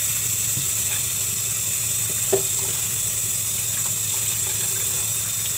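Kitchen tap running steadily into a stainless steel sink as raw chicken is rinsed and rubbed under the stream, with one brief bump a little over two seconds in.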